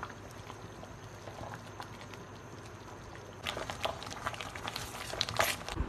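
Pot of thick haleem bubbling on the stove while being stirred with a spoon: a faint steady hiss, then a quick run of sharp pops and clicks over the last two and a half seconds.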